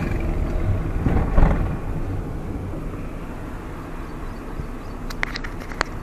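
Maruti Suzuki Alto K10 hatchback driving, heard from inside the cabin: a steady low rumble of engine and road noise that eases off gradually, with a few sharp clicks near the end.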